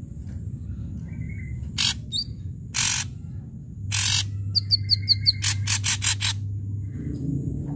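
Ashy drongo singing loudly: a few harsh, scratchy notes spaced about a second apart, then around five seconds in a quick run of five short whistled notes, followed at once by a fast series of harsh rasping notes.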